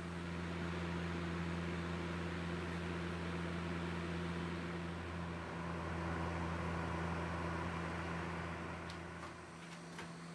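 Electric circulator fan running: a steady low motor hum with a rush of air, dropping away shortly before the end.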